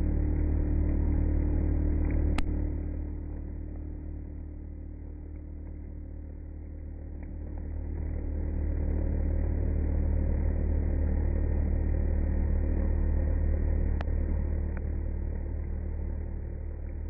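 CNC router spindle at 18,000 rpm running a 3 mm single-flute end mill through polyethylene, the cutter gummed up with melted plastic. The cutting noise grows louder and quieter as the pass goes on, with a sharp click about two seconds in and another near the end.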